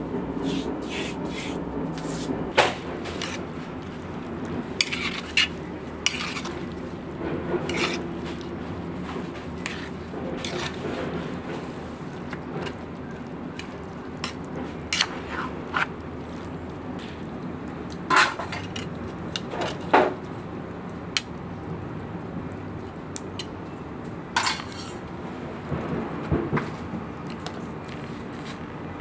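A metal spoon clinking and scraping in an aluminium cooking pot, with scattered sharp knocks as the pot is handled.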